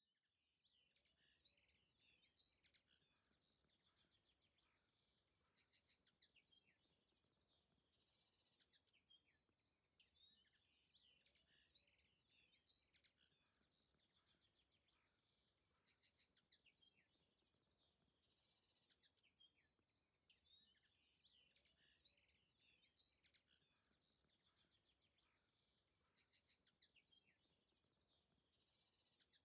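Faint songbird chirping and trilling, in busy clusters that come back about every ten seconds over a low steady hiss.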